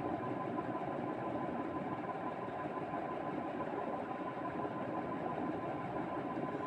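A steady mechanical hum with a faint steady whine above it, unchanging throughout.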